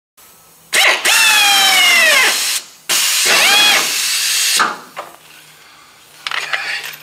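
Pneumatic air drill running in two long bursts, its whine falling in pitch during each, with a hiss of air, as it drills into car-body sheet metal. A shorter burst follows near the end.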